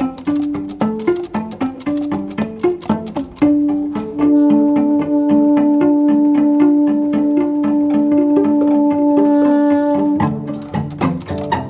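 Background music: quick plucked string notes, with a long held note running through the middle for about six seconds before the quick plucking resumes.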